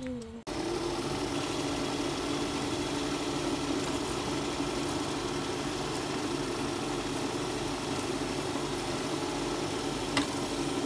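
Steady hum of an industrial leather-working machine's electric motor running. It starts abruptly about half a second in, and there is a single click near the end.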